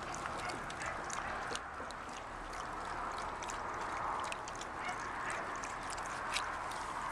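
A cattle-dog-type dog lapping water from a plastic wading pool: a run of quick, irregular wet laps and small splashes.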